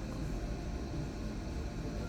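Steady low hum and hiss of room noise, with no distinct event.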